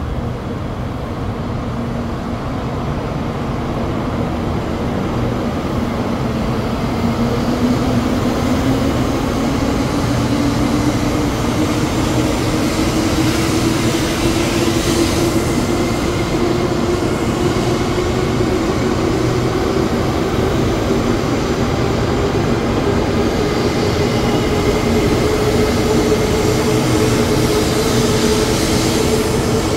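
Taiwan High Speed Rail 700T train departing a station and accelerating. The cars roll past with a rumble that grows louder over the first several seconds, under a traction-motor whine that rises steadily in pitch as the train gathers speed.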